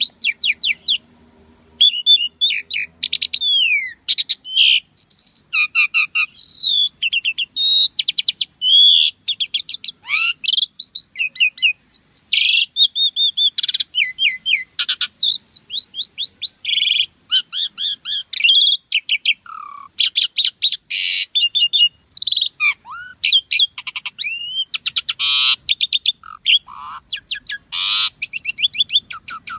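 Asian pied starling (jalak suren) in full song: an unbroken, rapid stream of varied whistles that glide up and down, chattering runs and clicks, with only brief gaps between phrases.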